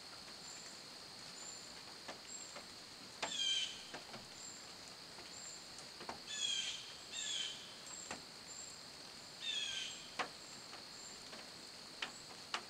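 Wet-forest ambience: a steady high insect drone with short high chirps repeating about every half second. A bird's call of falling notes sounds four times, and a few sharp ticks stand out, the clearest near the end.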